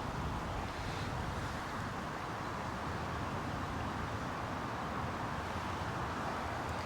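Steady outdoor background noise: a low rumble and even hiss with no distinct events.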